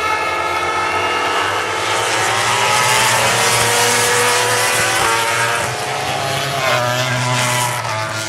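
MotoGP race bikes' four-stroke engines howling past on the track, several at different pitches. They are loudest about three to four seconds in, then their pitch drops as they pull away.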